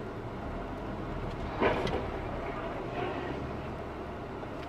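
Car engine and road noise heard from inside the cabin, a steady low hum, with one brief sharp sound about one and a half seconds in.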